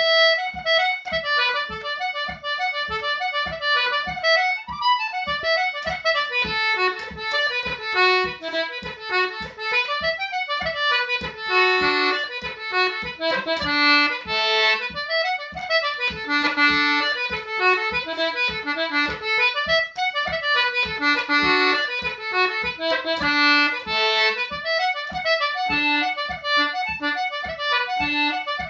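Concertina playing an Irish reel at a brisk pace: fast runs of reedy, bellows-driven notes. A steady beat of low taps keeps time underneath.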